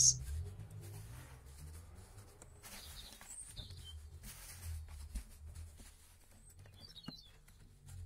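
Faint rustling of dry leaves and straw being pressed into a flower pot by gloved hands, over a low background rumble. A few faint bird chirps come about three seconds in and again near the end.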